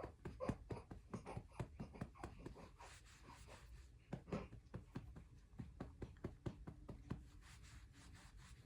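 A hand patting a baby's back to bring up a burp after a feed: soft, quick pats, roughly three a second in an uneven rhythm.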